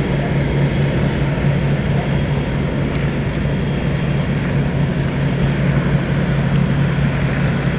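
Voskhod passenger hydrofoil running at speed up on its foils: a steady low drone from its diesel engine over a constant rushing noise.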